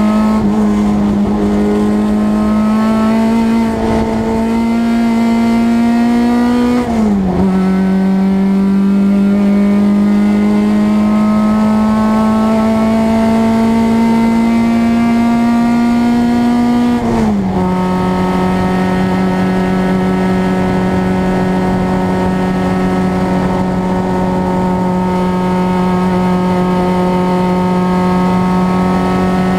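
Renault Clio race car engine heard from inside the stripped cabin, pulling slowly at low speed. The revs climb gently, then drop sharply at upshifts about 7 seconds and 17 seconds in, and after that the engine holds a steady, even note.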